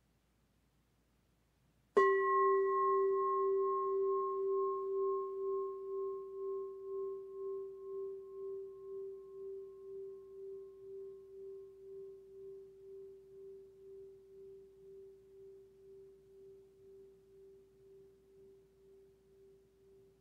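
A singing bowl struck once with a wooden striker about two seconds in, then ringing with a low steady tone and a fainter higher overtone. The ring slowly fades with a regular wobble in loudness and is still sounding at the end.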